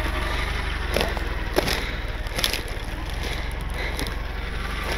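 A vehicle's engine running with a steady low rumble, with a few sharp knocks and rattles in the first half.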